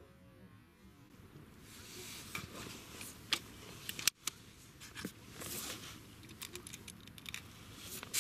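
Rustling and scattered small clicks of handling noise close to the microphone, with one sharp click about four seconds in.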